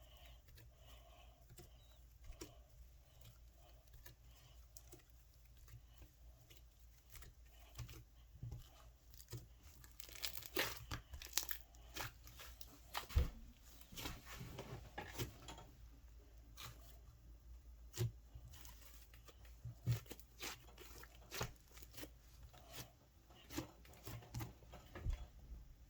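Slime being squeezed and stretched by hand, giving off irregular crackling and popping clicks that grow busier about ten seconds in.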